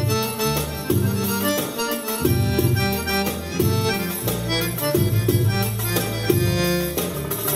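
Live oriental belly-dance music played on a Korg keyboard: a melody over a bass line and a steady drum beat.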